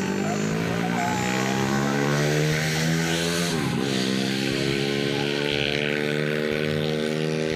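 An engine running with a steady pitch that creeps upward, dips sharply and recovers about halfway through, like a shift in revs.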